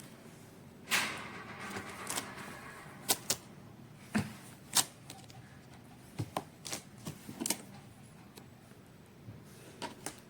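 A dog's claws clicking and tapping on a hard surface as it moves around: irregular sharp clicks with a short scuffle about a second in.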